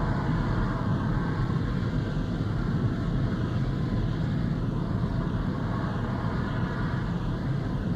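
A steady, unchanging low rumble with a noisy hiss over it.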